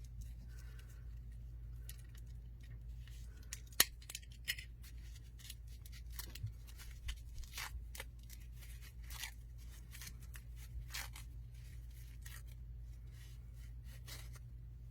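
Hands unwrapping a packaged crystal: an irregular run of short crinkles, snips and tears of wrapping, with one sharp click about four seconds in, over a steady low hum.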